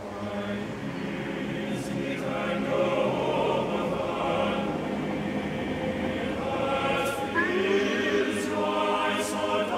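A choir singing as background music, with long held notes.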